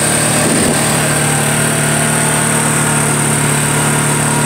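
ATV engine running at a steady pitch while riding, heard close from the rider's seat.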